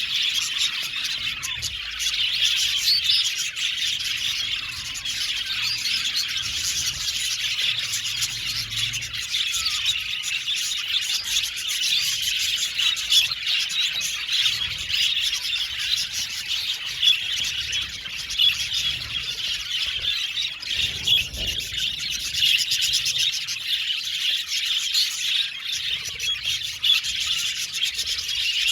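A flock of budgerigars (budgies) chattering and chirping all at once, a dense, unbroken, high-pitched twittering from many birds.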